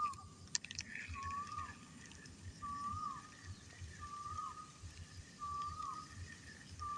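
An animal's whistled call repeating about every one and a half seconds, five times: each is a short held note that ends in a quick downward drop. A few sharp clicks sound near the start.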